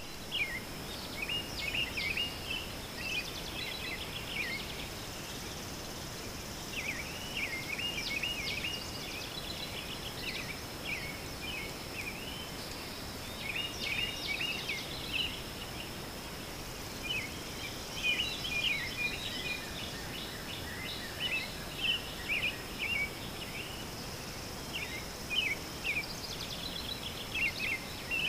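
Songbirds singing in short, quick chirping phrases, one after another, over a steady high-pitched insect buzz and a hiss of background noise.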